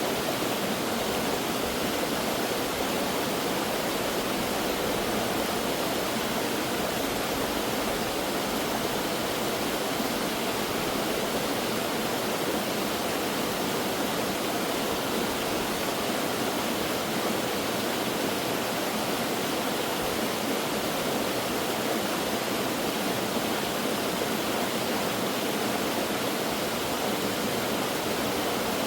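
Mountain stream water rushing and splashing over rocks, a steady even rush.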